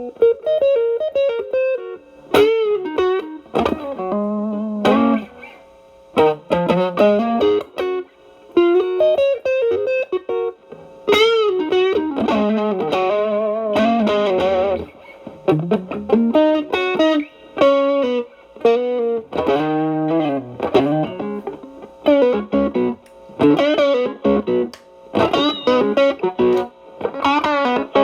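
Electric guitar, a Stratocaster through an Xotic BB Plus overdrive preamp into a Marshall Valvestate amp, playing a bluesy single-note lead. The notes carry wide vibrato and bends, in phrases with short pauses between them.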